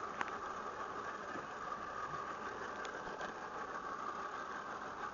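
Boat engine running steadily, a constant hum, with a couple of faint clicks.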